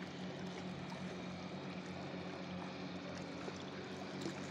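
Small waves lapping and trickling against a camera held at the sea surface, a steady watery hiss, over a steady low drone.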